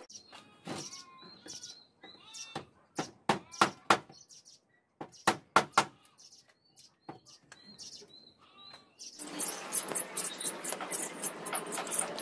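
Sharp hammer knocks on wood, some single and some in quick runs of three or four, with a bird chirping between them. About nine seconds in, the dense, scratchy back-and-forth of a board being sanded by hand with a sanding block takes over.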